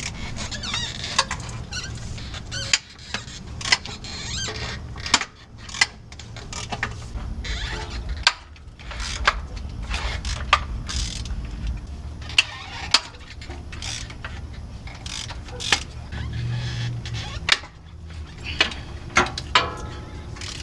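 Hand tools working on bolts: a ratchet wrench and metal parts clicking and clinking irregularly over a steady low rumble.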